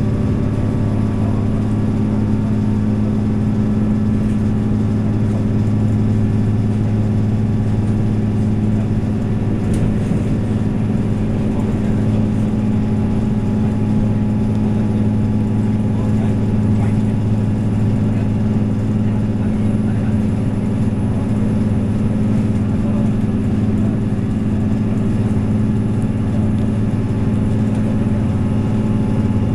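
Diesel multiple unit train running, heard inside the passenger car: a steady drone from the underfloor diesel engines with a low hum under the rolling noise of the train.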